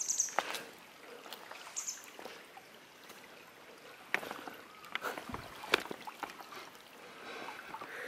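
Footsteps wading through a shallow, stony stream: irregular splashes and scrapes of shoes on wet pebbles, over the steady trickle of the water.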